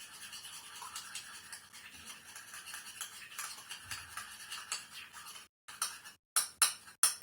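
A utensil beating an egg yolk in a bowl: fast, rapid scraping and clicking against the dish. It gets louder and sharper near the end, with a couple of brief silent breaks.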